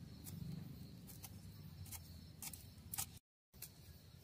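Scissors snipping fresh green chillies into small pieces: a string of short, sharp snips at uneven intervals, breaking off suddenly about three seconds in.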